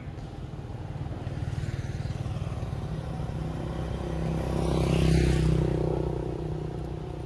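A motor vehicle engine passes by, swelling to its loudest about five seconds in and then fading, over a steady low engine hum.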